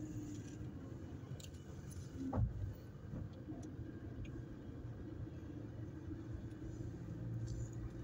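Car driving slowly, heard from inside the cabin: a steady low engine and road rumble, with a short knock about two and a half seconds in.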